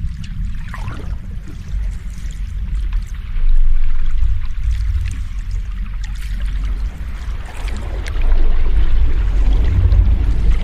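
Sea waves washing in over a deep, steady low rumble. It swells louder about three and a half seconds in, and again near eight seconds, when a hissing wash of surf comes in.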